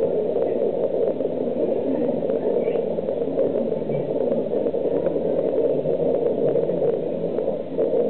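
Steady rushing background noise of an aquarium hall, even and unchanging, with a few faint ticks.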